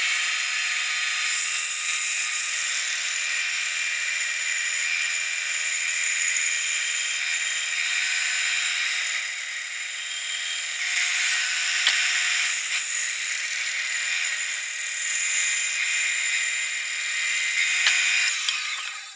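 Bandsaw running steadily while its blade cuts a curve through a wooden board, making a continuous whine and hiss.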